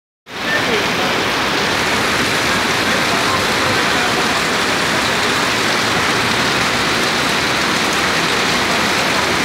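Heavy rain pouring down on a wet street and paved sidewalk: a loud, steady hiss of downpour.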